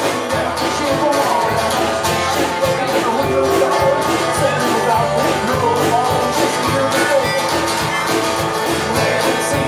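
Live roots-rock band playing a country-style song, guitars to the fore over a steady beat.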